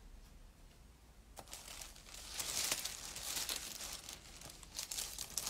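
Thin plastic record sleeve crinkling and rustling as a vinyl LP is handled and slid into it, starting about a second and a half in with small clicks, loudest around the middle.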